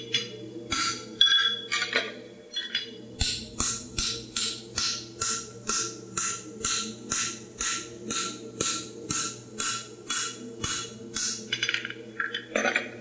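Farrier's hand hammer striking a handled forging tool held on a hot steel horseshoe over the anvil. A few uneven blows come first, then an even run of ringing blows at about two and a half a second, with one more blow near the end.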